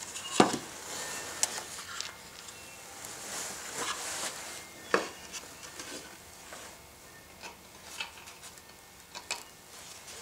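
Metal router parts and small screws being handled on a workbench: scattered light clicks and knocks, the sharpest about half a second in and others at irregular gaps.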